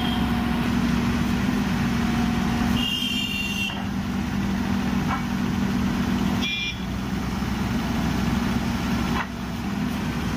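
Diesel engine of an XCMG horizontal directional drilling rig running steadily with a loud low drone while it drills. Two brief high tones cut through, about three seconds in and again midway.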